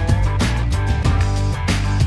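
Background music: an upbeat rock track with guitar, a steady bass line and a regular drum beat.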